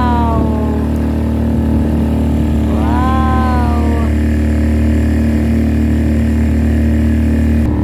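A small motorboat's engine running steadily under way. Two short calls that rise and then fall in pitch come over it, one at the start and one about three seconds in.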